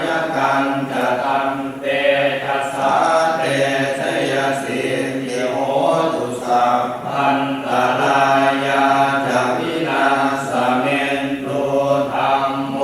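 Buddhist chanting of Pali verses, recited continuously in a steady, even rhythm.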